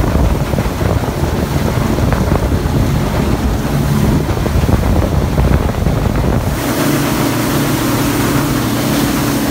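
A small boat's 50 hp outboard motor running at speed, with wind buffeting the microphone and water rushing past the hull. About two-thirds of the way through, the wind rumble drops away and the engine's steady drone comes through clearly.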